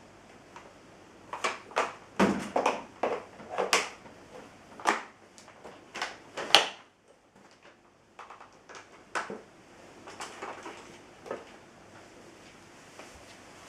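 A run of sharp clicks and knocks, with no motor running: parts of the Vorwerk upright vacuum cleaner being handled. They come in quick succession for a few seconds, then a few more scattered knocks after a short pause.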